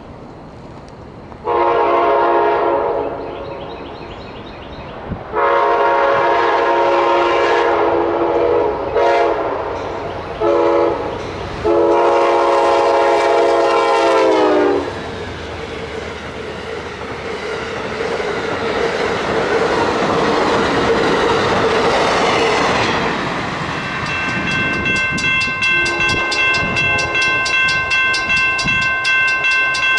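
An Amtrak passenger train's locomotive horn sounds a run of long and short blasts for the grade crossing, and the last long blast drops in pitch as the train reaches the crossing. Then comes the rush of the train passing at speed, and once it has gone by the crossing's warning bell rings on steadily.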